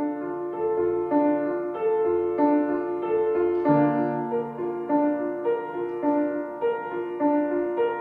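Piano music: a gentle repeating figure of single notes over a held bass note, the bass moving to a new note about halfway through.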